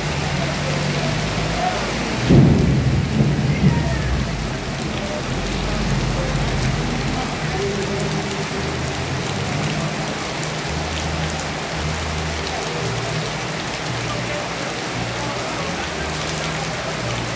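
Heavy downpour falling on a flooded street, a steady hiss of rain throughout. A loud clap of thunder about two seconds in rumbles on for a second or two.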